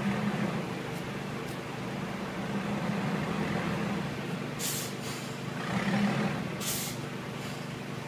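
Narrow-gauge diesel locomotive's engine running steadily, with two short hisses, one just past halfway through and another about two seconds later.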